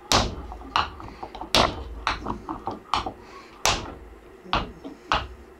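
Hand hammer blows on a burnt-out generator stator, about nine sharp, irregularly spaced strikes with a few lighter taps in the middle, knocking out a part seized fast by melted plastic.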